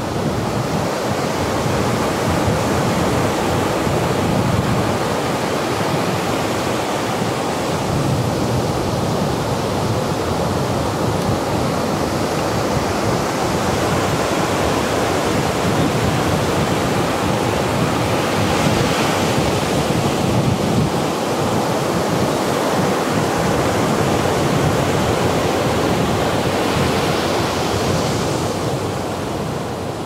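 Ocean surf breaking continuously on the beach, a steady loud rush of waves, with wind buffeting the microphone.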